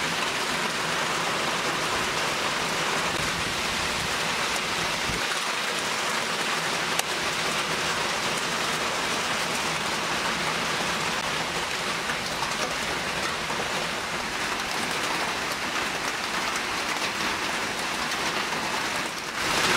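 Steady rain falling on wet ground and surfaces, an even hiss with no break.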